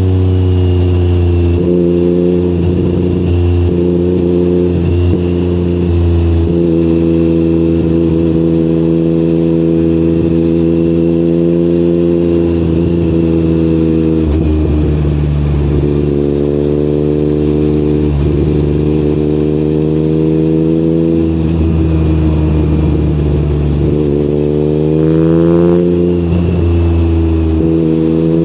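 Yamaha MT-09's CP3 three-cylinder engine running through an Akrapovic exhaust, its note holding fairly steady for long stretches with several brief dips, then climbing in revs near the end.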